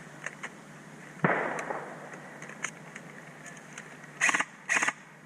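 Airsoft gunfire: faint scattered shots, a sharp crack about a second in that dies away over half a second, then two short bursts of automatic fire near the end.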